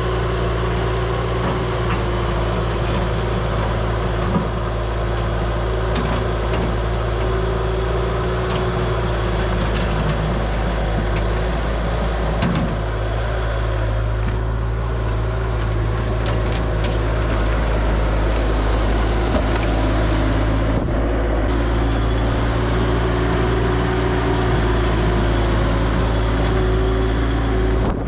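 Bobcat T300 compact track loader's diesel engine running steadily at working speed, with a few scattered knocks.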